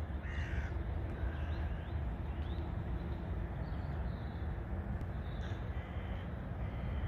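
A crow cawing, loudest about half a second in, with a few short higher bird chirps scattered through, over a steady low rumble of wind on the microphone.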